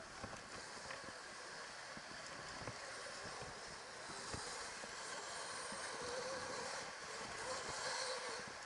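Electric dirt bike ridden over a bumpy dirt track, heard from the rider's camera: a steady hiss of tyres and moving air, scattered knocks and rattles from the bike over the bumps, and a faint wavering motor whine about six seconds in.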